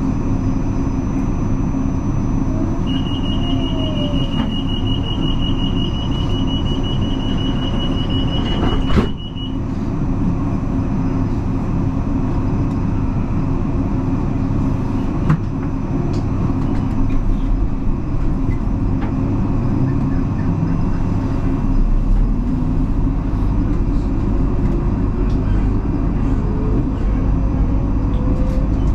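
Inside an electric commuter train standing at a station: a high, rapidly pulsing door warning tone sounds for about six seconds and ends with a sharp knock of the doors closing about nine seconds in. The rumble of the train then builds, with a slowly rising motor whine near the end as it pulls away.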